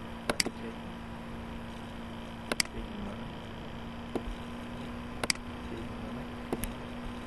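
Computer mouse button clicks, about five spaced a second or two apart, most heard as a quick double tick of press and release, over a faint steady electrical hum.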